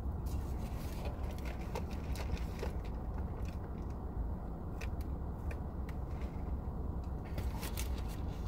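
Close-up eating sounds: chewing, small mouth clicks and a sip through a straw from a fountain-drink cup, with a bunch of clicks near the end. Under them runs the steady low rumble of a car's cabin.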